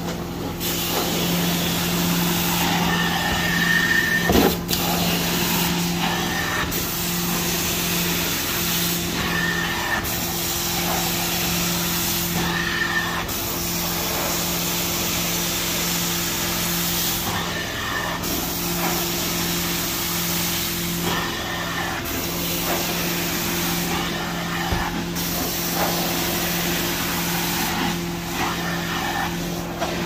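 Carpet-extraction stair tool on a vacuum hose being worked over carpeted stair treads: a steady machine hum under a loud suction hiss that dips briefly every few seconds, now and then with a short whistle.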